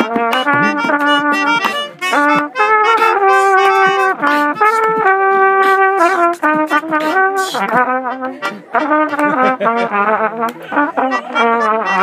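Trumpet playing a melodic line of short and held notes in a loose jam, over hand drums and clapping.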